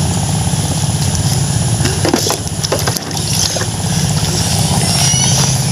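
A small engine running steadily at idle, a loud, even low hum.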